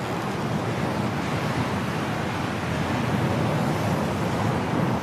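Strong wind of a snowstorm blowing steadily, an even rushing noise heaviest in the low range, with no gusts or breaks.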